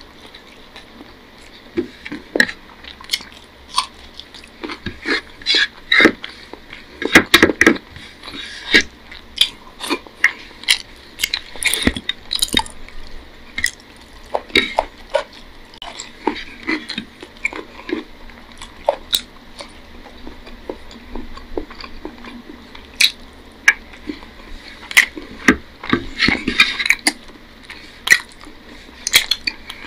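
Close-up eating sounds of a person eating rice and curry by hand: chewing, lip smacks and sucking at the fingers, heard as irregular sharp wet clicks.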